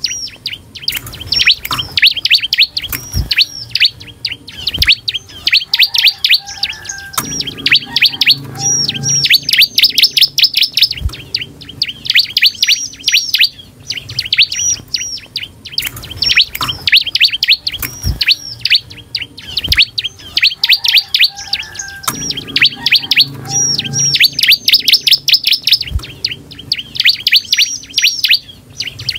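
Bar-winged prinia (ciblek) singing continuously: rapid runs of high, sharp chirps, broken by short pauses. A few soft knocks are heard among the song.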